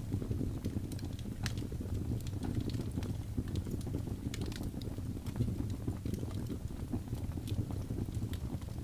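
Wood fire burning: a steady low rumble of flames with scattered sharp crackles and pops.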